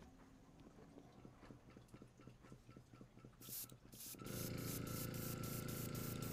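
Faint handling rustles, then an airbrush hissing in short pulses about three or four times a second from about three and a half seconds in. About a second later a steady motor hum from its air compressor joins it.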